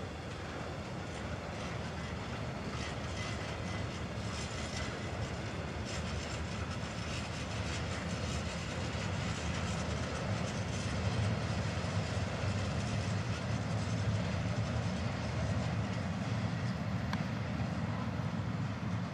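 A long freight train of open wagons rolling past on the rails: a steady rumble of wheels on track.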